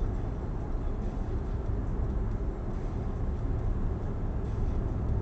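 Steady low rumble of a car idling while stopped at a traffic light, heard from inside the cabin.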